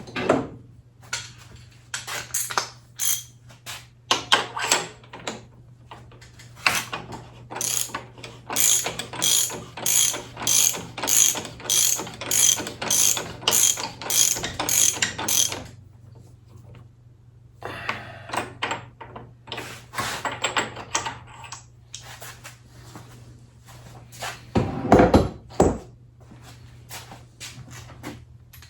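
Hand ratchet wrench clicking through repeated back-and-forth strokes, settling into a steady run of about two clicks a second, pausing, then clicking again. A loud low knock comes near the end.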